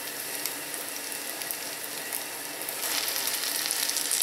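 Zucchini fritters frying in vegetable oil in an uncovered pan: a steady sizzle with many small crackles, growing somewhat louder about three seconds in.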